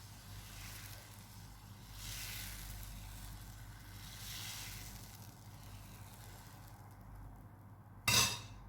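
Crepe batter of flour, egg and butter sizzling on a hot pan, the hiss swelling twice. A brief, sudden loud noise comes near the end.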